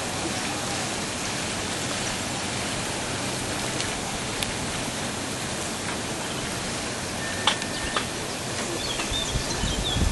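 Steady rush of running water, with two short sharp clicks about seven and a half and eight seconds in.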